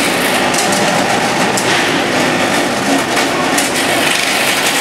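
Chocolate-making machinery running loudly and steadily, a continuous clattering noise with many small clicks through it.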